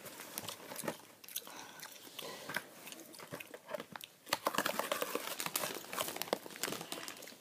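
Cardboard Pocky snack box being handled and its end flap pulled open: scraping, crinkling and small tearing sounds that grow busier about halfway through.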